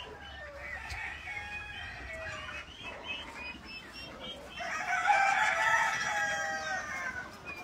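Chickens clucking, then a rooster crowing once, a long drawn-out call that starts a little over four and a half seconds in and is the loudest sound.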